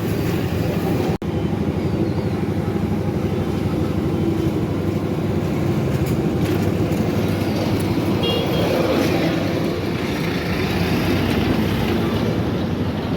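Steady road traffic noise with vehicle engines running, broken by a brief drop-out about a second in.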